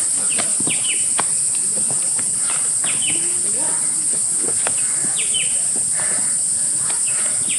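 Steady high-pitched drone of insects, with short falling bird calls repeating every second or so.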